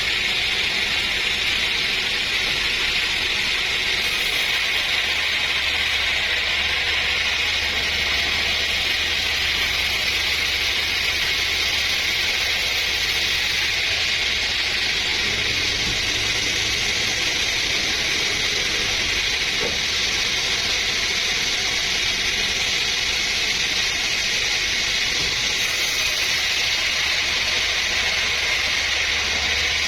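Sawmill saw running with a steady, unbroken high hiss.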